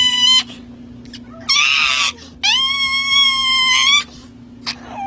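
Small chihuahua screaming and wailing while its claws are clipped. There is a high cry at the very start, a harsher shriek about one and a half seconds in, and a long drawn-out cry from about two and a half to four seconds in.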